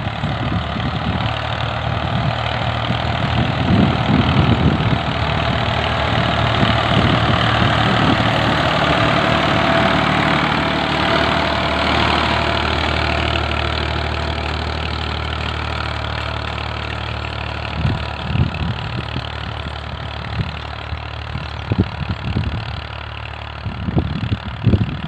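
Ford 4000 tractor engine running steadily under load as it pulls a disc ridger through tilled soil. It grows louder as the tractor passes close by about midway, then fades as the tractor draws away, with a few low thumps near the end.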